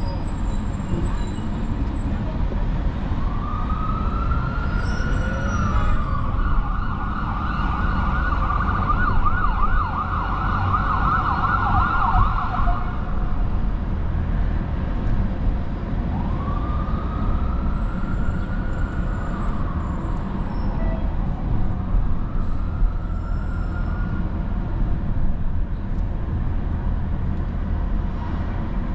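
An emergency vehicle siren over steady city traffic rumble. A slow rising and falling wail starts about three seconds in and switches to a fast yelp for several seconds, followed later by two more slow wails.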